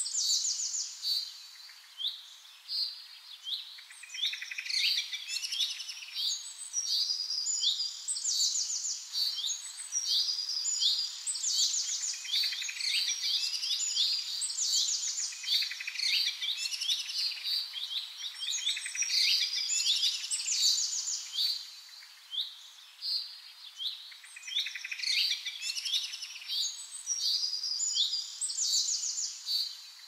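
Songbirds singing: a continuous run of high chirps and rapid trills, the phrases repeating every few seconds.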